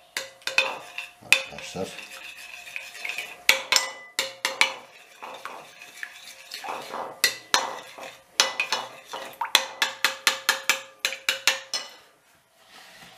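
Metal teaspoon clinking fast and irregularly against a glass bowl while stirring an egg and butter mixture, stopping near the end.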